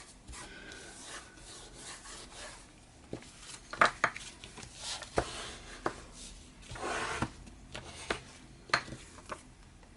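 Paper and card being handled and rubbed on a craft table: soft rubbing and rustling broken by a few sharp taps and clicks, the loudest about four seconds in and again near the end.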